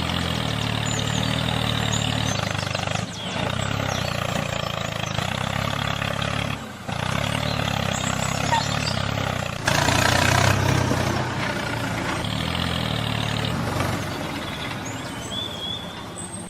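A truck-like engine running steadily, in several pieces with sudden cuts about 3, 7 and 10 seconds in.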